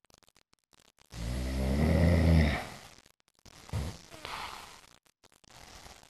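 A sleeping person snoring loudly: one long snore starting about a second in and fading after about a second and a half, then a softer snore a little past the middle.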